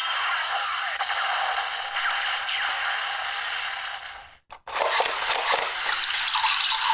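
DX Genesis Driver toy belt playing its electronic transformation sound effects and music through its small built-in speaker, with a thin, tinny tone. The sound cuts out briefly about four and a half seconds in, then starts again with a run of sharp clicks and effects.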